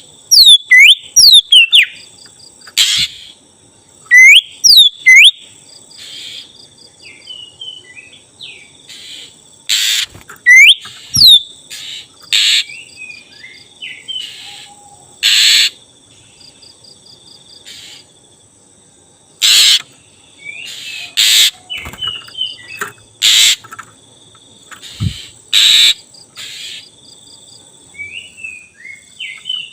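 Oriental magpie-robin (black-breasted kacer) singing: a string of quick rising whistles in the first few seconds, then short harsh rasping notes mixed with little chattering phrases, with a faint steady high-pitched tone behind.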